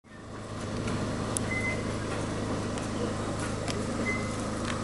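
Steady electric hum of a narrow-gauge electric train standing at a station platform, its on-board equipment running, fading in at the start. A few faint ticks and two brief high-pitched tones sound over it.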